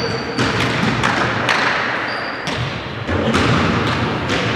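Basketball game sounds in a sports hall: a ball bouncing on the court in a string of irregular thuds that echo, with a short high squeak from the floor about two seconds in.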